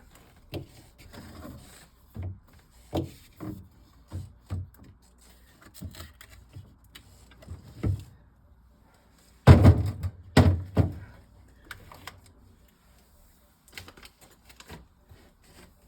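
Plastic milk bottles being set down and shuffled into rows on a fridge shelf: scattered light knocks and clunks, with a burst of louder thuds about ten seconds in.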